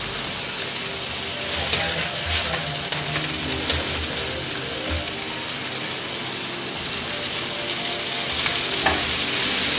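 Sliced onions and chopped red and green bell peppers sizzling steadily in hot oil in a skillet, with a wooden spoon stirring them through the pan.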